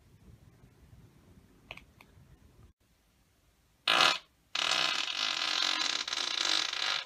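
A man farting: after a quiet stretch with a couple of faint clicks, a short loud fart about four seconds in, then a long drawn-out one lasting about two and a half seconds.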